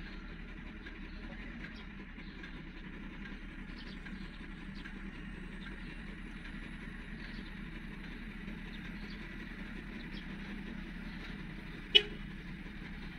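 Heavy-equipment diesel engine running steadily at a distance, a low even hum. About twelve seconds in there is a single sharp knock, the loudest sound.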